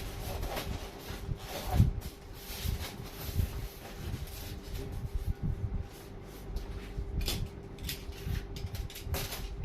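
Cardboard packaging being handled: irregular rustling, scraping and light knocks as a box is opened and its contents moved.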